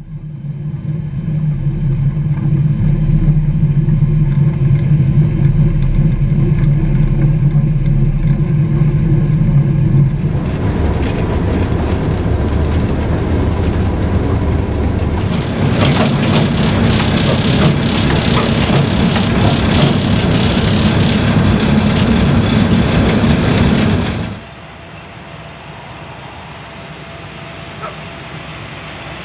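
Electric locomotive under way, heard from on board: a steady low electrical hum, then about ten seconds in a loud rush of wind and running noise through the open cab window. Near the end it cuts suddenly to a much quieter, steady distant train and wind sound.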